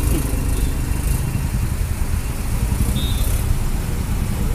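Road traffic held at a city junction: a steady low rumble of idling vehicle engines close by.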